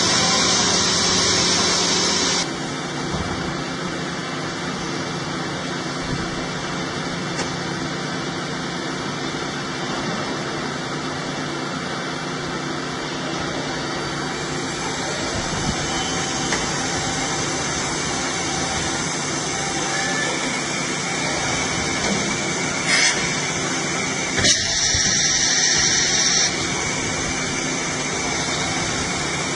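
Large industrial milling machine running: a steady mechanical drone with a hiss, changing abruptly about two and a half seconds in and again near the end.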